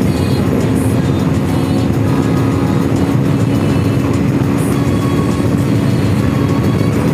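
Steady engine and wind noise from a Honda VFR800 motorcycle cruising at an even highway speed, with a music track playing over it.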